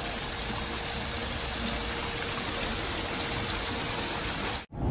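Steady rush of water from a small waterfall spilling down a rock face into a pool. It cuts off suddenly near the end.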